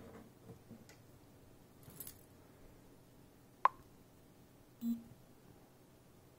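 Cats scuffling at a cardboard box: faint paw scratches and rustles on the cardboard, then one sharp click about three and a half seconds in, followed by a brief low hum near the five-second mark.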